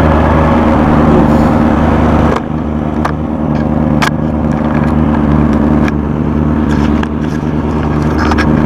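Benelli TNT 600i's inline four-cylinder engine idling steadily, its pitch holding even. A rushing hiss over it cuts out about two and a half seconds in, and a few sharp clicks follow.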